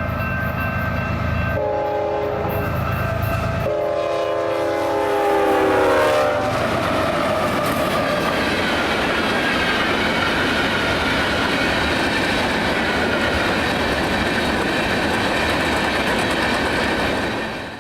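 Diesel freight locomotive's horn sounding three blasts, the last one dropping in pitch as the locomotive passes at about 60 mph. The steady noise of the freight train's cars rolling past at speed follows for the rest of the time.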